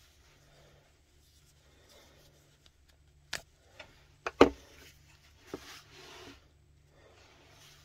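A BabyBjörn One Air mesh baby carrier being handled: soft rustling of its fabric with a few sharp plastic clicks around the middle, the loudest a quick double click.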